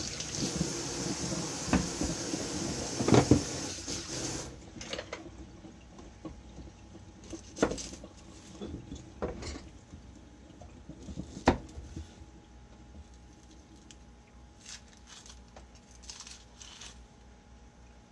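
Kitchen knife and small onions being peeled and handled on a cutting board over a stainless steel sink drainboard: scattered light clicks and knocks, the loudest about three seconds in and again near the middle. A steady hiss runs through the first four seconds or so and stops abruptly.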